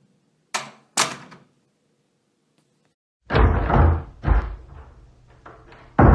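Doors being closed, one sound effect after another. First come two short, sharp clicks about half a second apart. Then, from about three seconds in, come heavy door slams: a deep boom with a rattling tail, a second thud, a few lighter knocks, and another hard slam near the end.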